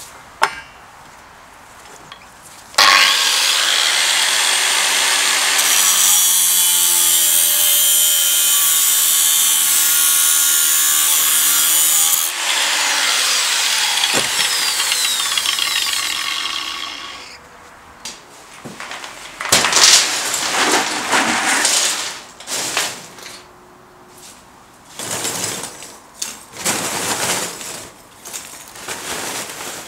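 Angle grinder with a cutoff wheel cutting through thick steel rebar: a loud, steady grinding hiss for about fourteen seconds, changing about nine seconds in as a piece is cut through, then the grinder winds down. After a short pause, several uneven bursts of rattling and rustling follow as lump charcoal is poured from its bag into a forge.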